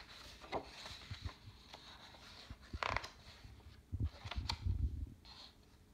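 Pages of a picture book turned by hand: paper rustling and sliding in short, irregular strokes, with a few soft low bumps of handling about four to five seconds in.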